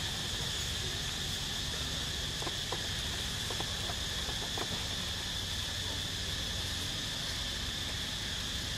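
Steady, high-pitched drone of insects in the forest, with a low steady rumble underneath.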